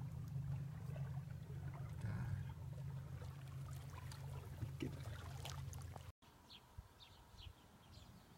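A low steady rumble with faint trickling water over it, which cuts off suddenly about six seconds in. After the cut a small bird chirps, a short falling note repeated two or three times a second.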